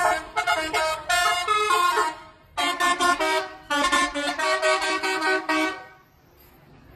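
Indonesian bus "telolet" horn, a multi-tone air horn, playing quick melodic phrases of changing notes with short breaks between them, stopping about six seconds in.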